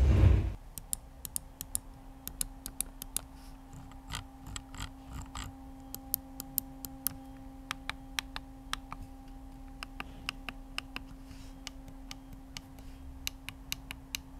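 Mad Catz R.A.T. 6+ gaming mouse buttons being clicked again and again: sharp clicks in uneven runs, some in quick pairs, over a faint steady hum.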